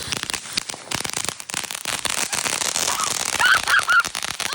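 Consumer fireworks crackling: a dense, rapid run of small pops and crackles, with a few short high-pitched wavering squeals about three seconds in.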